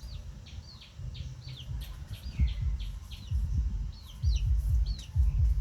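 Small bird chirping over and over, quick high notes that each fall in pitch, about three a second. A low, uneven rumble runs underneath.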